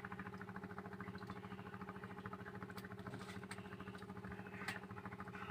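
A small engine running steadily with a fast, even pulse, with a few faint clicks over it.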